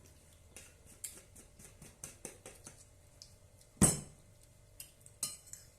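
Cutlery clinking and scraping against a plate in a run of small light clicks, with one much louder knock about four seconds in and another sharp clink near the end.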